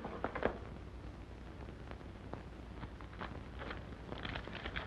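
Faint rustling and light clicks of paper money being handled, a cluster of them in the last second and a half, over the steady hiss and low hum of an old film soundtrack.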